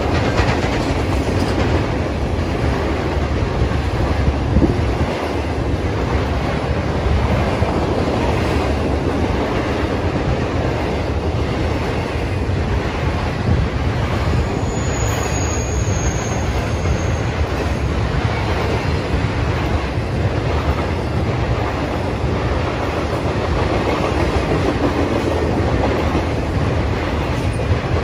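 Intermodal freight cars, double-stack container well cars and trailer flatcars, rolling past steadily, wheels running on the rails. A brief high squeal comes in about halfway through.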